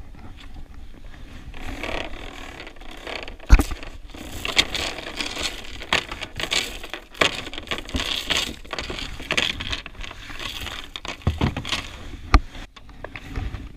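An anchor line being hauled in by hand over a jet ski's side: rope rustling and scraping, stainless steel anchor chain clinking, and a few sharp knocks, the loudest about three and a half seconds in and again near the end.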